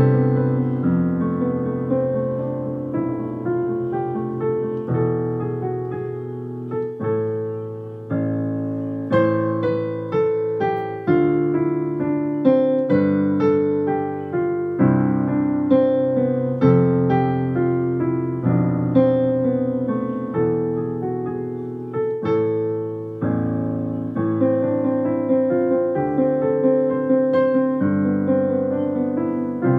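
Digital piano playing a passacaglia: a steady stream of struck notes and chords, louder and reaching higher from about nine seconds in, easing back about two-thirds of the way through.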